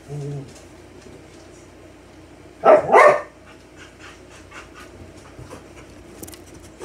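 A dog giving two short barks in quick succession about three seconds in.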